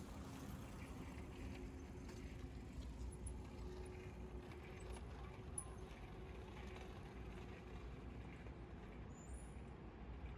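Faint, steady urban traffic hum: a low rumble of road vehicles with a faint engine drone, and a few light clicks.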